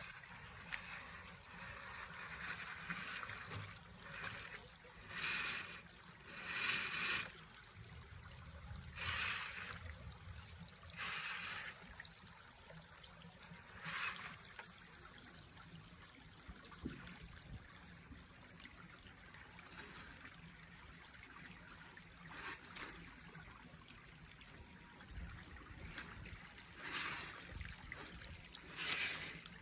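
Running water of a shallow creek, with repeated short bursts of splashing as a radio-controlled crawler truck's tyres churn through it.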